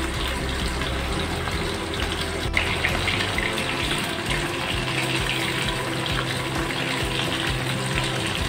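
Hilsa fish steaks sizzling steadily as they shallow-fry in a little hot oil in a kadai.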